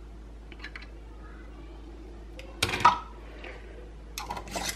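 Metal canning lid and screw band handled and set onto a filled glass jar: a few faint clicks, one sharper clink and rattle a little past halfway, and more metal clatter near the end.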